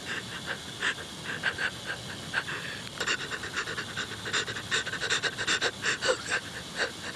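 A young woman panting in quick, shaky breaths, several a second, as she cries in fear.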